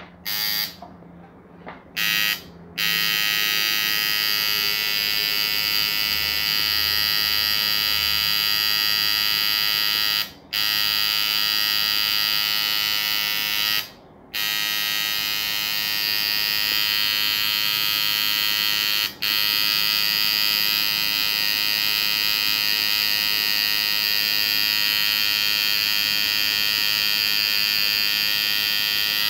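Tattoo machine buzzing as it needles ink into forearm skin. It gives two short bursts at first, then a steady buzz that stops briefly three times.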